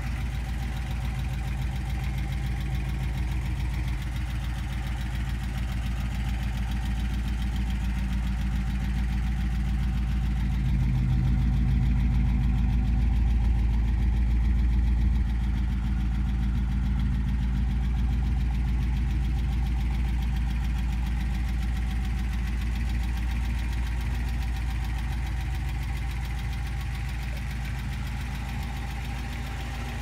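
A 1957 Rambler Rebel's V8 engine idling steadily. It is a little louder for a few seconds around the middle, when heard from behind at the tailpipe.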